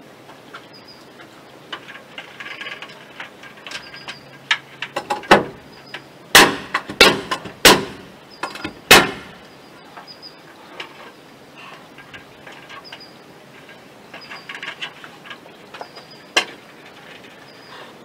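Loud sharp strikes on wooden roof framing as a board is fastened overhead: about five hard bangs close together in the middle, with lighter knocks and handling clatter before and after.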